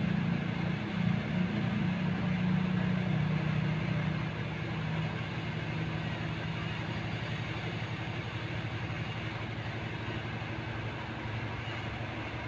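Kitten purring close up: a steady low pulsing rumble, fuller for the first four seconds or so, then settling lower and a little quieter.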